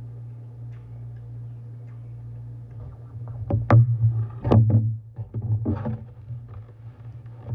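Eating sounds: wet mouth clicks and smacks of chewing grilled catfish, starting about three seconds in, over a steady low hum.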